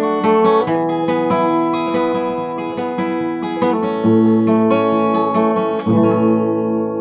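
Acoustic guitar finger-picked, the notes of each chord ringing over one another, with the chord changing a few times.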